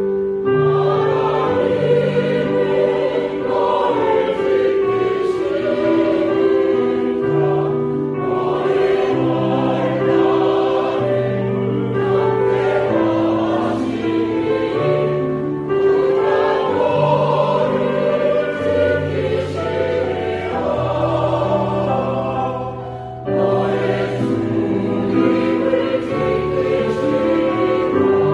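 Mixed church choir, men and women, singing a Korean sacred anthem in several parts with keyboard accompaniment. It holds long sustained notes, with a brief breath between phrases near the end.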